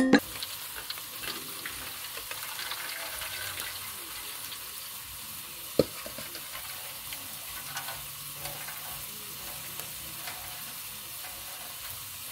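Curry sizzling steadily in a pan over a wood fire. One sharp knock about six seconds in.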